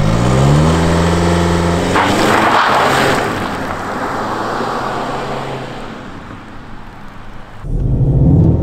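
Škoda Octavia RS engine revved up and held steady, then a launch from standstill about two seconds in: a loud burst as the car pulls away, fading as it drives off. Near the end it cuts sharply to engine sound heard inside a car's cabin.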